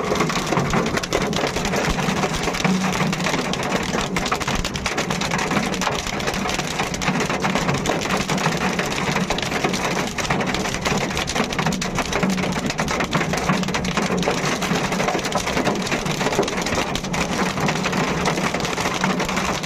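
Heavy rain pouring steadily, a dense hiss of countless drops hitting surfaces without letting up.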